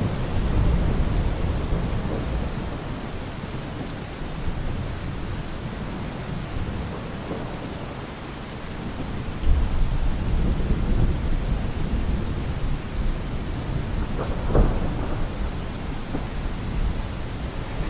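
Steady rain with rolling thunder, the rumble swelling about a second in and again around ten seconds, with a sharper, louder burst a little before the end.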